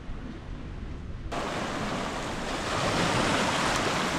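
Sea waves washing onto a beach, with wind rumbling on the microphone; about a second in the sound jumps abruptly to a louder, steady surf hiss.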